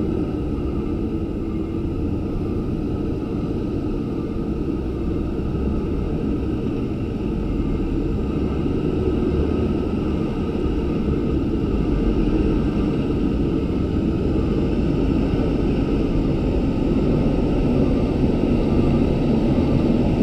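Diesel engine of a Hino hauling dump truck approaching, a steady low rumble that grows gradually louder as it comes closer.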